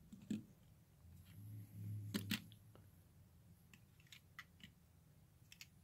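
Faint clicks and taps of small diecast model cars being picked up and set down by hand on a tabletop display, with a soft low rumble of handling about a second in.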